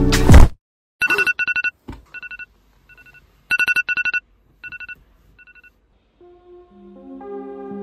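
Music cuts off abruptly, then a mobile phone sounds a two-pitch electronic beep in a repeating pattern: a quick group of four, a pair, then a single fainter beep, twice over. Soft ambient synth music fades in near the end.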